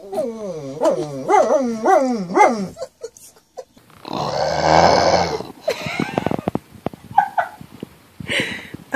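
German shepherd 'talking': a wavering whine-howl that rises and falls about every half second for nearly three seconds. After a pause an English bulldog gives one long, hoarse grunt, followed by a few short clicks and snuffs.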